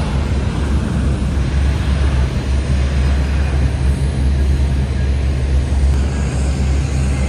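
Steady, loud low rumble of airport apron noise: aircraft and ground equipment running, with no single event standing out.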